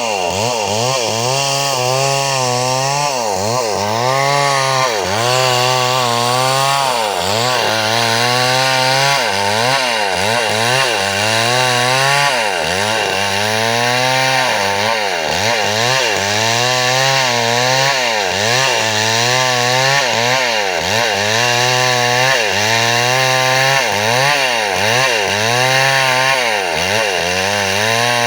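Chainsaw running and cutting wood, its engine pitch dipping and rising again about once a second.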